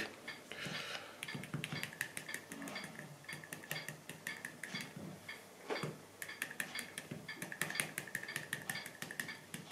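Tip of a small kitchen knife jabbing sausages, clicking sharply against the cutting board several times a second so the skins won't burst in the pan.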